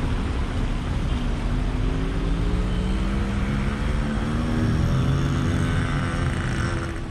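Road traffic: cars passing with a steady low rumble, and one vehicle engine's pitch slowly rising and falling. The sound fades out near the end.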